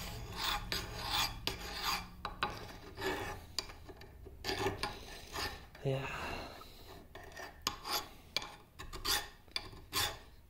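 Hand file rasping back and forth across steel gear teeth in short, uneven strokes, about one to two a second. The file is dressing weld built up on broken teeth down to tooth form.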